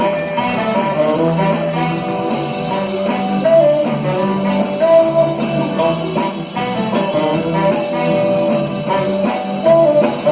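Live band playing an instrumental passage of a romantic ballad: a lead melody of long held notes over bass and chords, with no singing.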